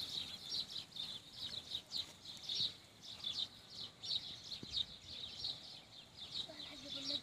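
Many small birds chirping and twittering without a break, high-pitched. A short wavering bleat starts near the end.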